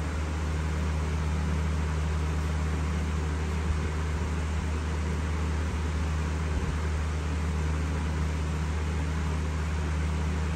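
Steady low machine hum with an even hiss over it, like a fan or air-conditioning unit running, with a couple of faint knocks.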